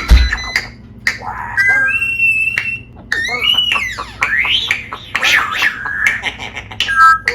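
Pet parrot chattering, whistling and squawking in a rapid string of rising and falling calls, some sounding speech-like. A sharp low thump comes right at the start.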